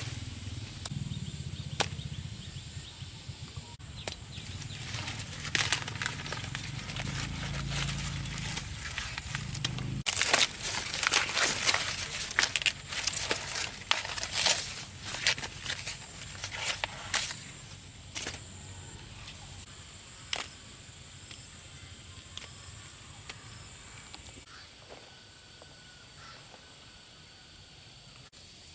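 Irregular rustling and crackling of dry plant leaves and stalks being handled, with sharp snaps that come thickest in the middle and thin out to a few near the end.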